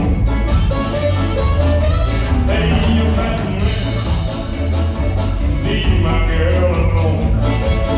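Live band playing a ska number: drums, bass guitar, electric guitars and keyboard, with a harmonica cupped against the microphone carrying the wavering lead melody.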